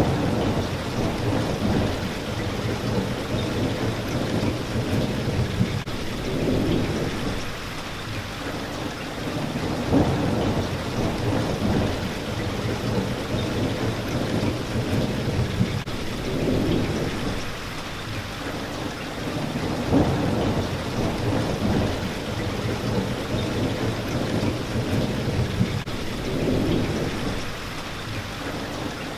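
Steady rain with low thunder rumbling, swelling and fading every few seconds, with a few sharper claps now and then.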